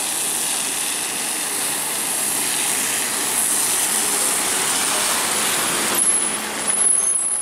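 Double-decker bus pulling in to a stop on a rain-soaked road: the steady hiss of rain and tyres on wet tarmac under the bus's engine, growing louder as it passes close, with a few thin high squeaks near the end as it brakes.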